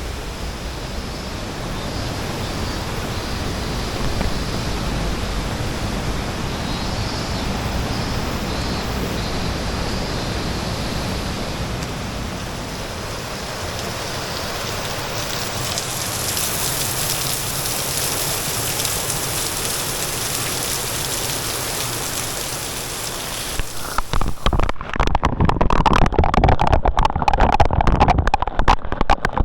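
A waterfall rushing steadily. About three-quarters of the way in it cuts to loud, gusty wind buffeting on the microphone.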